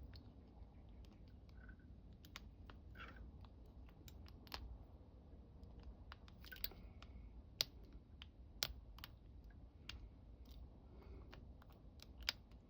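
Faint clicking and scraping of a lock pick and tension wrench working the pins of a Master Lock ProSeries 6835 padlock, with a few sharper clicks in the second half.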